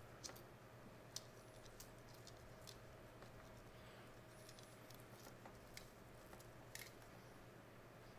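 Near silence over a faint steady hum, with a handful of faint, sharp metallic clicks spread through it: an Omega caliber 712 mainspring being worked out of its barrel by hand.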